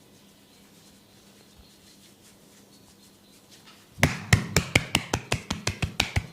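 Near silence for about four seconds, then a quick run of sharp wooden taps, about five a second: a tok sen mallet striking a wooden wedge held against the body.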